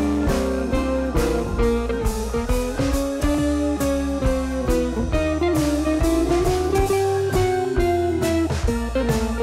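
Instrumental background music with a steady beat and a held melody that slides slowly up and down.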